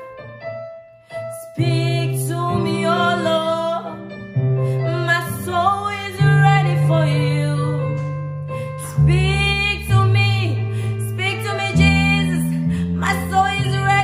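A woman singing a slow worship song in held, wavering phrases over sustained keyboard chords, starting after a short pause.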